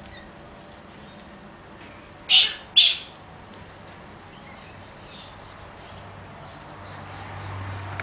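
Galah giving two short, harsh screeching calls in quick succession, about two seconds in. A low hum builds near the end.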